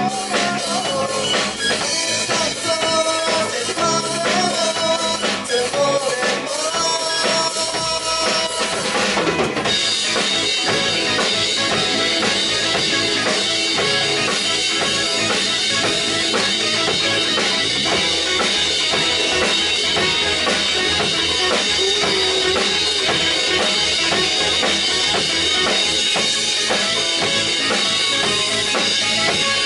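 A rock band plays an instrumental passage, led by a drum kit with bass drum, snare and rimshots under guitar, bass and keyboard. About nine seconds in, it breaks into a louder, denser section with cymbals ringing steadily over a driving beat.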